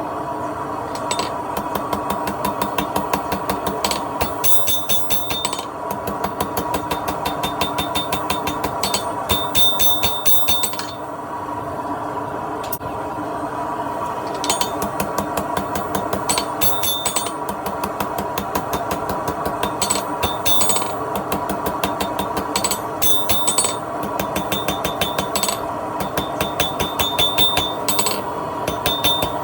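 A hand hammer striking hot steel on an anvil in quick runs of blows, each ringing briefly, with short pauses between runs while the piece is forged into an arrowhead. A steady hum runs underneath.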